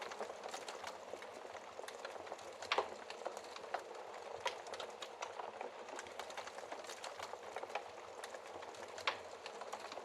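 Wood fire crackling steadily, with many small pops and a few sharper snaps, the loudest a little under 3 seconds in.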